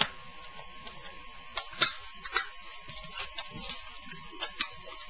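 Irregular sharp plastic clicks and snaps as the front cover of a disposable camera is pried off its body.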